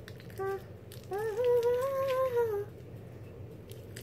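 A person humming: a short note, then a longer one that rises in pitch and levels off for about a second and a half.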